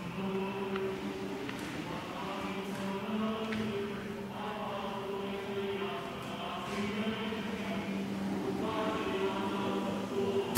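Choir singing a slow chant: voices holding long notes over a steady low held note.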